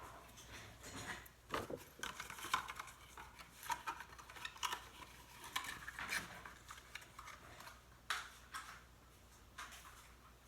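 Irregular light clicks, taps and scrapes of small parts and tools being handled during a laptop speaker repair, busiest in the first eight seconds and thinning out near the end.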